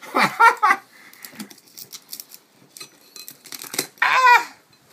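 Two short vocal exclamations, one at the start and a louder falling one about four seconds in, with faint scattered clicks and crunches between them as a blade cuts around the mouth of a sea urchin's shell.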